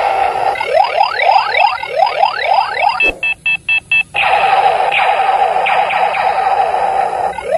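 Battery-powered 'Funny Gear' toy pistol with see-through spinning gears playing its electronic firing sounds through its small speaker: a run of quick rising laser zaps, then a click and about five short beeps a little before halfway, then a steady warbling tone, and the rising zaps start again near the end.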